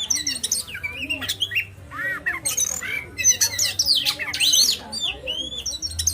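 Songbirds chirping and whistling in a quick run of varied notes: arching whistles, rising and falling sweeps and sharp chirps, with only brief gaps.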